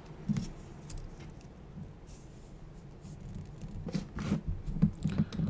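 Plastic model kit parts, bomb bay door pieces, being handled and pressed together by hand: soft scattered clicks and taps, coming more often near the end.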